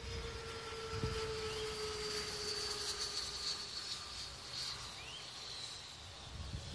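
Faint distant engine drone, a steady hum that slowly drops in pitch and fades out about halfway through, with a couple of short, high rising chirps over it.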